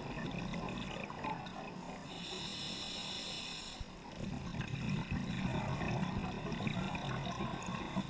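Scuba diver breathing through a regulator underwater: low bubbling of exhaled air, a hissing inhale from about two to four seconds in, then exhaled bubbles again.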